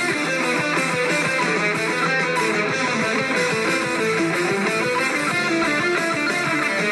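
Live rock band playing, led by strummed electric guitars over bass, drums and keyboard, at a steady level without a break.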